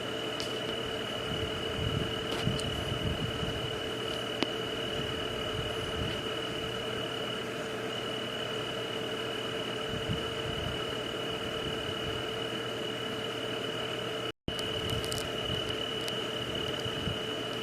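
Night nature ambience: a steady chorus of insects holding one constant high trill, over an even hiss and a low hum, with a few faint clicks. The sound cuts out completely for an instant about fourteen seconds in.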